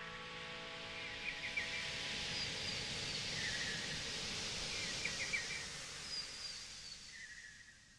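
Outdoor ambience with a steady hiss of background noise and a songbird repeating a short phrase ending in a trill about every three seconds; the ambience fades out near the end.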